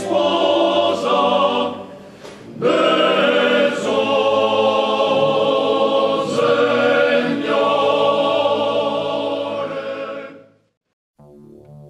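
A choir singing a slow sacred piece in sustained chords, fading out about ten and a half seconds in. After a moment of silence, soft electric piano music starts near the end.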